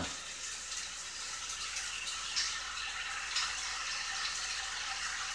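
Steak sizzling on a George Foreman contact grill: a steady hiss, with a few faint light clicks.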